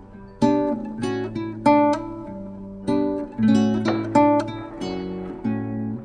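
Background music on acoustic guitar: plucked notes and strummed chords, each starting sharply and ringing away.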